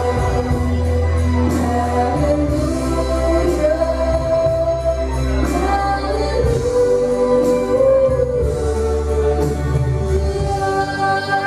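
A young woman singing through a handheld microphone over backing music, holding long notes that slide between pitches.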